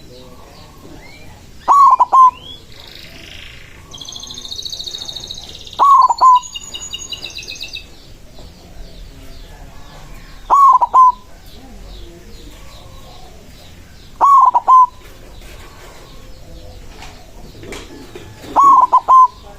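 White zebra dove (perkutut) cooing: a loud short two-part phrase repeated five times, about every four seconds. Smaller birds chirp faintly between the phrases.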